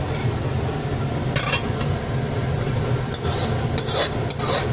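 Steel ladle scraping fried masala out of a metal kadhai into a pressure cooker, in several short metal-on-metal scrapes, most of them in the second half, over a steady low hum.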